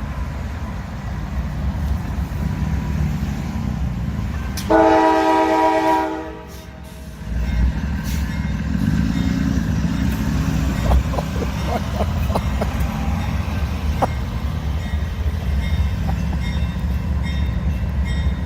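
Train running past with a steady low rumble, and one horn blast lasting about a second and a half, about five seconds in.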